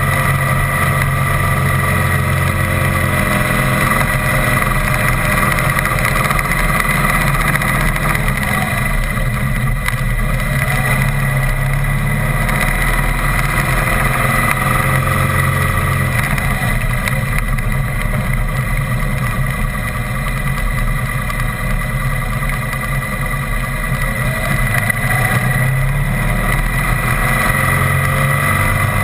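Motor vehicle engine running steadily at road speed, heard with wind and road noise from a camera mounted on the vehicle. The engine note shifts a few times, about three seconds in, midway and near the end.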